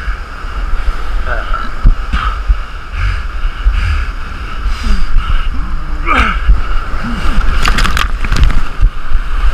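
Waves breaking and surging over rocks, heard through a GoPro's waterproof housing as a loud, churning rush of whitewater with a deep rumble; near the end the foam washes right over the camera, adding close splashing.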